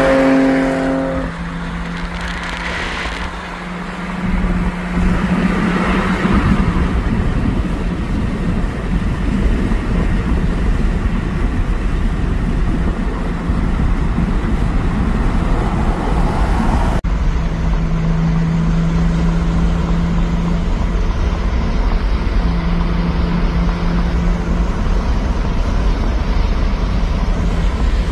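Cars at highway speed heard from inside a moving car: steady road and wind noise under a low engine drone, getting louder about four seconds in.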